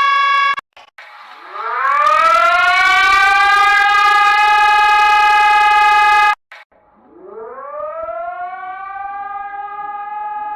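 Effect-altered versions of Brazil's emergency alert alarm tone. A steady alarm tone cuts off just after the start; then a siren-like tone glides up in pitch and holds for about four seconds before stopping abruptly, and after a brief gap a second, quieter one glides up and holds.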